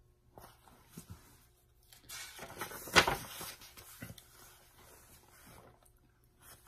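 Pages of a large picture book being turned by hand: a paper rustle that builds about two seconds in and peaks in one sharp slap of the page near the three-second mark, with a few soft taps from handling the book around it.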